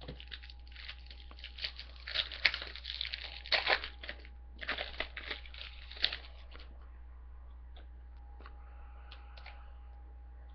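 Trading card pack wrapper being torn open and crinkled: a run of sharp crackly rips lasting about four seconds, then only a few faint clicks of handling.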